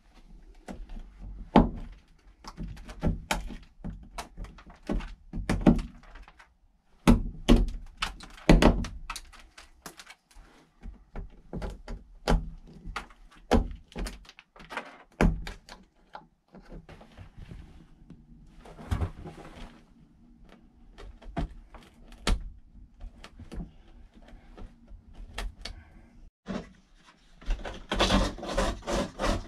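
Bathroom wall cladding being cut by hand around a round fan hole: a string of irregular sharp clicks and knocks. Near the end, rhythmic rasping of sandpaper smoothing the cut edge starts.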